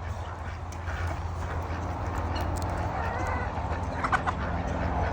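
Farmyard poultry calling faintly: a short chirp about three seconds in and a few brief calls a second later, over a steady low rumble.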